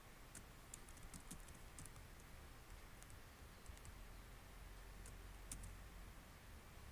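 Faint typing on a computer keyboard: scattered soft key clicks, densest in the first two seconds, over a low steady hum.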